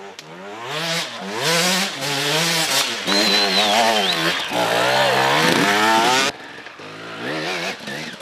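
Enduro dirt bike engine revving hard under load on a steep dirt hill climb, its pitch rising and falling again and again as the rider works the throttle. The sound drops off sharply about six seconds in, and a quieter engine carries on.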